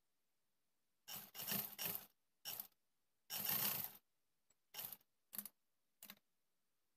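Black sewing machine stitching in short stop-start spurts: a cluster of runs starting about a second in, the longest run of under a second in the middle, then three brief spurts, with silence between.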